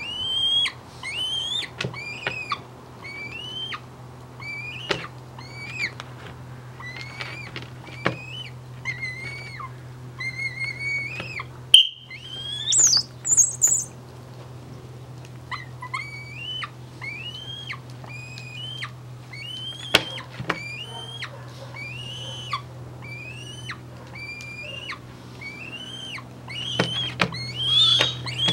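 Young white tiercel goshawk (albidus × atricapillus) calling over and over, a whining call that rises and falls about once a second. About twelve seconds in comes a sharp click and then a short, high whistle, the trainer's conditioned-reinforcer whistle marking the moment the hawk touches the lure.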